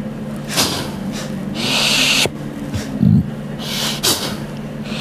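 A person breathing hard, with loud hissing breaths about once a second and a short low snort about three seconds in.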